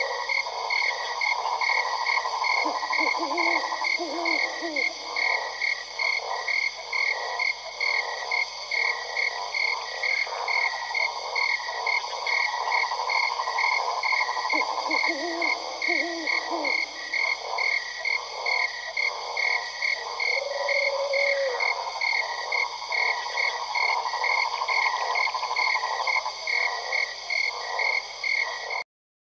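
A dense chorus of frogs calling: a steady pulsing trill over a mass of rapid croaks, with deeper croaking calls breaking through about three seconds in and again around fifteen seconds. The chorus cuts off abruptly near the end.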